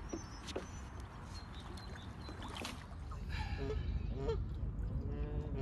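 Wind rumbling on the microphone beside a lake, with birds calling: faint chirps, then a few louder calls in the second half.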